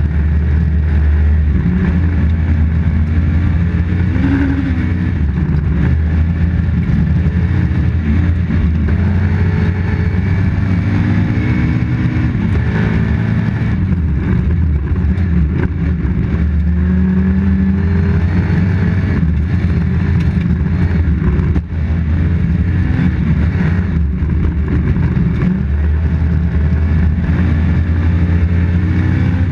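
Toyota Corolla GT rally car's engine heard from inside the cabin, driven hard and revving up and down through the gears on a snowy special stage, with tyre and road noise. The level drops briefly about two-thirds of the way through.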